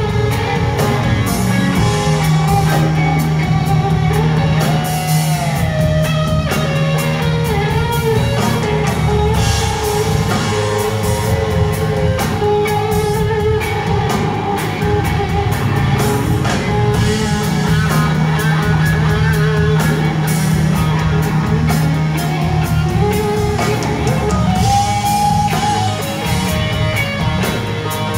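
Live rock band playing loudly through an arena PA: electric guitar lines over bass and a drum kit, with held notes changing pitch.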